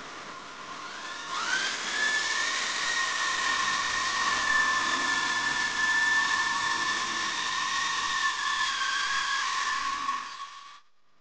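Corded electric drill spinning a round scrub brush over foamy sofa upholstery: a steady motor whine that speeds up about a second and a half in, holds, dips slightly near the end and cuts off suddenly.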